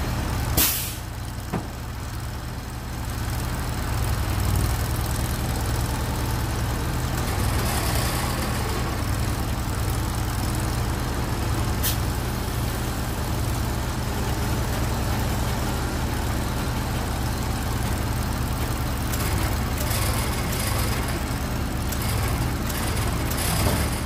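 Crane truck's engine running steadily with a low drone. A short sharp sound cuts through a little under a second in, with lighter clicks later.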